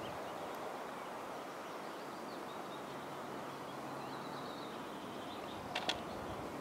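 Short tap-in putt holed: two sharp clicks in quick succession near the end, the putter striking the golf ball. Birds chirp faintly against a steady outdoor background.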